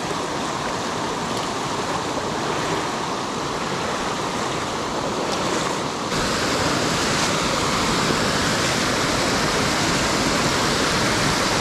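Creek water rushing over a beaver dam and down its spillway: a steady splashing rush that gets a little louder and fuller about halfway through.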